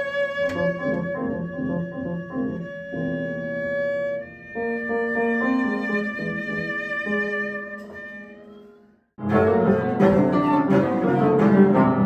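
Cello and piano improvising in free jazz style: the bowed cello holds long high notes over a pulsing lower line, fading away to nothing about nine seconds in. Then both come in abruptly with a loud, dense passage of rapid piano notes and bowed cello.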